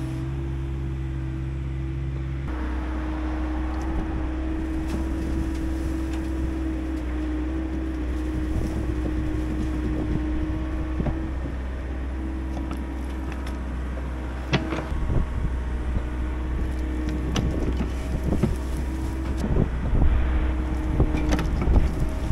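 Diesel engines of an excavator and an idling dump truck running steadily. From about halfway through, irregular thuds and rattles grow louder toward the end as buckets of wet dirt drop into the truck's steel dump body.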